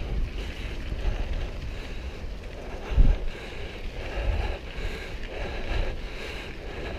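Wind buffeting the microphone of a moving camera while riding a mountain bike down a gravel track, over the rolling noise of the tyres, with one sharp bump about three seconds in.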